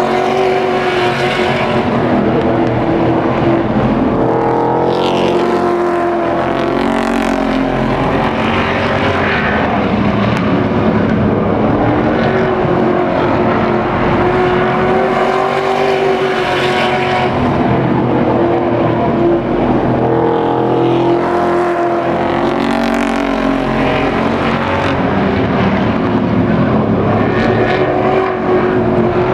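Engines of a pack of race trucks running at racing speed around a short oval. The engine note swells and its pitch rises and falls again and again as the trucks accelerate down the straights, lift for the turns and pass by.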